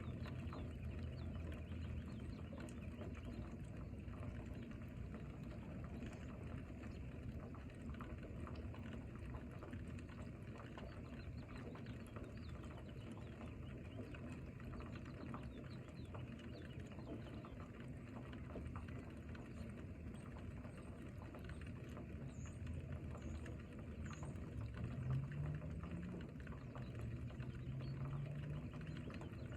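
Steady rain falling, a dense patter of drops over a low rumble. A few high chirps come about two-thirds of the way through, and a faint low tone rises near the end.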